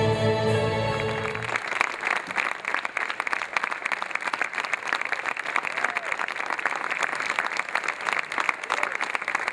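Music with long held tones cuts off about a second and a half in, then an audience claps steadily.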